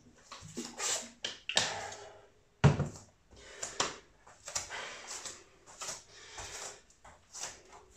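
Scattered knocks, clicks and brief rustling from someone moving about and handling things in a small room, with one sharper thump about two and a half seconds in.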